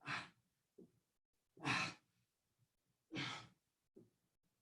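A person breathing hard through Russian twists: three forceful exhales about a second and a half apart, each followed by a short, faint intake of breath. The breaths keep time with the exertion of the twisting movement.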